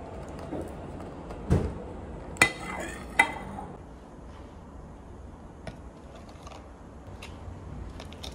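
A plate laid over a plastic food tub and flipped over onto a counter: a dull thump, then about a second later two sharp clinks with a short ring, followed by a few faint taps as the tub is handled.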